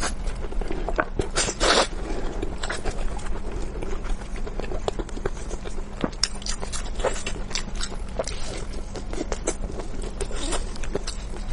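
A person chewing and biting food close to the microphone, giving a dense, irregular run of small clicks and wet mouth noises, with a louder bite near the start.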